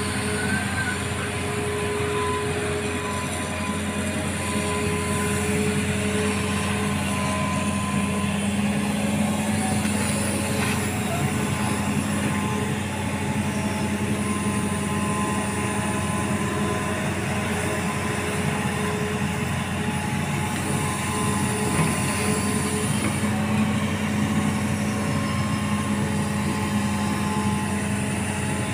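Hitachi amphibious excavator's diesel engine running steadily, with a faint hydraulic whine that comes and goes as the long-reach boom moves.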